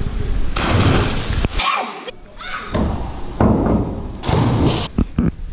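Diving springboard thudding as a diver bounces and takes off, with water splashing and short shouts in a swimming hall.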